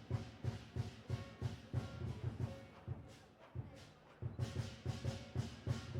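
Instrumental music with a steady low drum beat, about three beats a second, under a few held melodic notes. The drums thin out in the middle and come back strongly about four seconds in.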